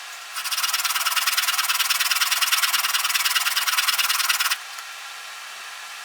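A steel plane iron being rubbed on an abrasive: a steady, gritty rasping with a fast flutter. It starts about half a second in and stops abruptly about four seconds later, leaving a fainter steady hiss.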